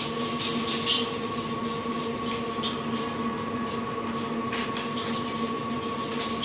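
A steady machine hum at several fixed pitches, with scattered brief scuffs and clicks from two dogs play-wrestling on a wooden slatted mat.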